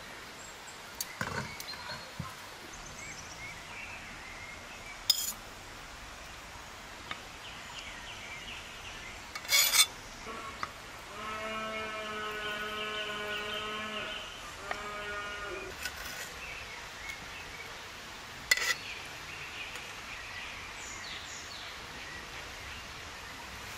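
A few sharp clinks of a metal spatula on a china plate as food is served, the loudest about ten seconds in. A farm animal bleats for about three seconds starting a little past the middle, then once more briefly.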